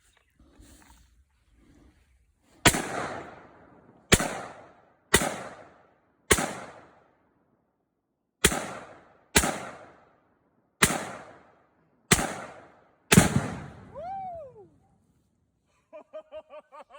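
Nine semi-automatic rifle shots from a Diamondback DB15 AR-15 in 5.56 mm, fired at an uneven pace about a second or two apart, each crack trailing off in an echo. The last shot is the loudest.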